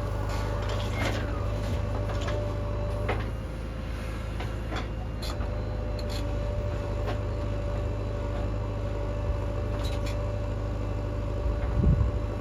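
Diesel engine of a JCB 3DX backhoe loader running steadily with a constant whine, while metal clanks and knocks sound every second or two. A heavier low thump comes near the end.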